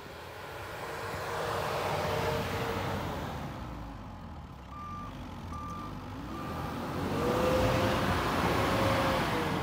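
Ford Ranger pickup stuck in deep snow, its engine revving up and down while the wheels spin and throw snow, pushing harder near the end. In the middle come four short reverse-gear warning beeps about two-thirds of a second apart.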